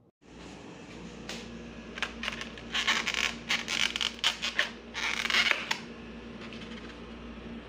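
Foam takeout clamshell box being unlatched and pried open by hand: a run of scratchy squeaks and creaks with sharp clicks, loudest around the middle, over a steady low room hum.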